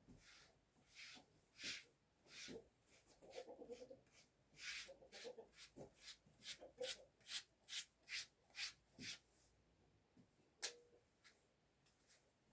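Faint, rhythmic scraping strokes, about two a second at their steadiest, with one sharper click about two-thirds of the way through.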